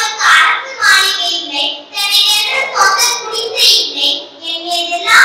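A young girl's voice giving a speech in Tamil into a microphone, in a sing-song, declamatory delivery.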